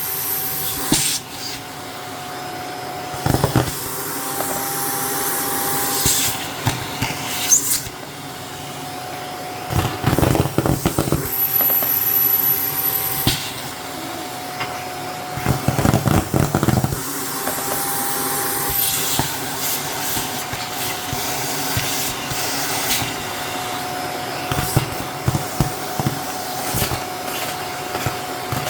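Shark vacuum cleaner running with a steady motor whine and rush of air. Every few seconds foam packing peanuts rattle and clatter as they are sucked up through the nozzle.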